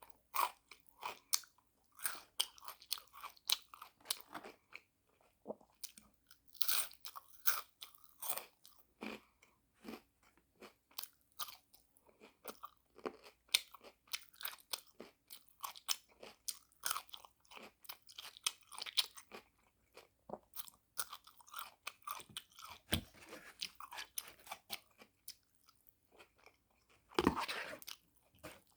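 A person chewing and crunching crunchy food, with many quick, irregular crunches and a louder, longer crunching noise near the end.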